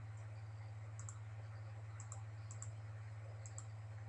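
Computer mouse clicking, about four quick clicks spread a second or so apart, each a short double tick, over a steady low electrical hum.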